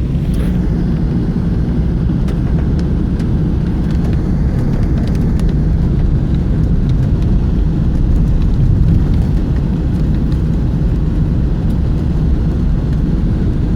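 Steady low road and engine rumble inside a moving car's cabin, with faint scattered ticks of heavy rain on the car.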